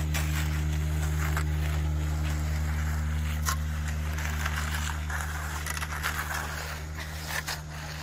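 Battery-powered MBW Screed Demon power screed vibrating as its board is drawn across wet concrete: a steady low hum, with scraping and a few clicks from the concrete being worked.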